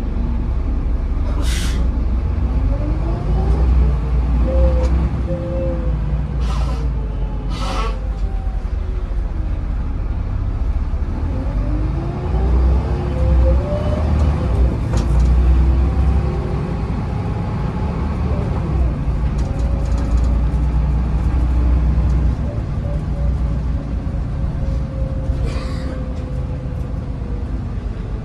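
Interior sound of a Volvo B7RLE bus with a ZF automatic gearbox on the move: its diesel engine and driveline rumble, with a whine that rises in pitch as the bus accelerates and falls as it slows, more than once. A few short air hisses from the bus's air system come through, the first about one and a half seconds in, two close together around seven to eight seconds in, and one near the end.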